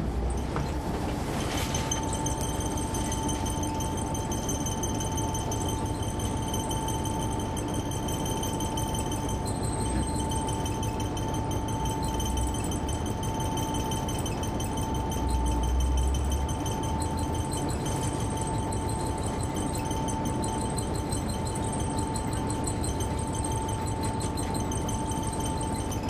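Inside-the-cabin sound of a 2004 Neoplan AN459 articulated bus with its Caterpillar C-9 ACERT diesel engine running: a steady low rumble with a steady high whine over it. The deep rumble swells briefly a little past halfway.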